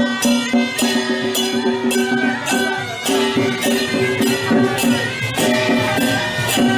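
Traditional Taiwanese temple procession band playing: a nasal suona melody held over a steady beat of drum and hand cymbals, about two strikes a second.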